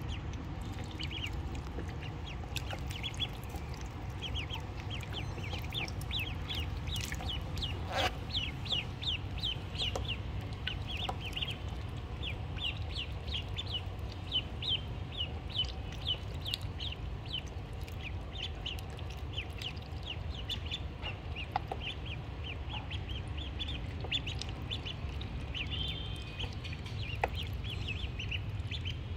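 Ducklings peeping: many short, high, slightly falling calls in quick runs of about three to four a second, over a steady low rumble.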